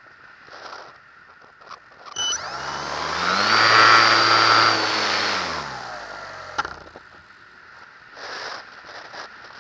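Electric motor and propeller of a Multiplex Easy Glider Pro RC glider spinning up about two seconds in: a whine and buzz that rises in pitch, holds, then winds down and cuts off with a click near seven seconds in.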